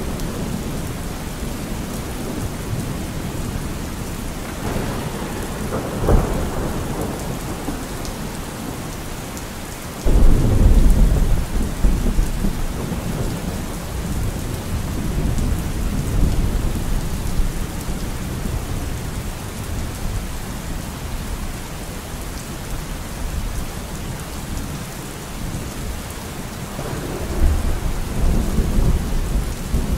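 Steady rain with rumbles of thunder. A rumble comes about six seconds in, then a sudden loud clap and a long low rumble about ten seconds in, and another rumble near the end.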